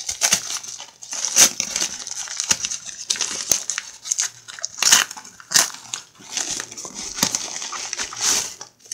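Brown kraft paper mailer envelope crinkled and pulled open by hand: irregular crackling and rustling of stiff paper, with a few sharper crackles along the way.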